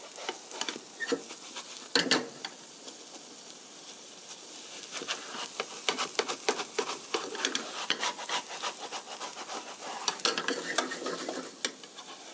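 Dumpling pancake frying in oil in a nonstick pan over low heat, with a steady sizzle. A single loud knock comes about two seconds in, and from about five to eleven seconds in a spatula scrapes and taps rapidly against the pan as it lifts the pancake's edge to check the underside.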